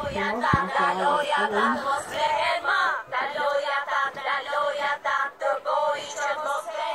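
A young girl singing in a high-pitched voice, a fast continuous run of notes with no clear words. A short knock about half a second in.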